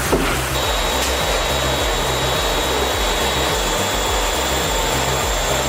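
A woodworking machine running steadily with a dense rushing noise and a thin high whine that sets in about half a second in. Under it is a low, stepping bass line of background music.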